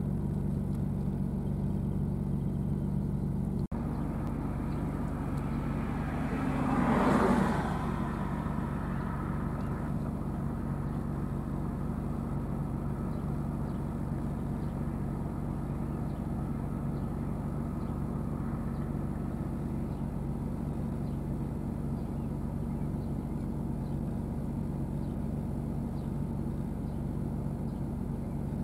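Case IH STX 375 tractor's Cummins 15-litre six-cylinder diesel running steadily under load as it pulls a disc harrow through the field. A brief louder rush swells and fades about seven seconds in.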